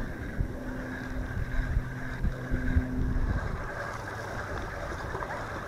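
Wind rumbling on the microphone. A low, steady hum runs through the first three seconds or so, then fades out.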